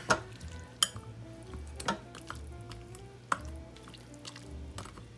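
A spoon stirring ramen noodles into a wet beef mixture in a slow-cooker crock, with about four sharp knocks of the spoon against the crock. Background music plays throughout.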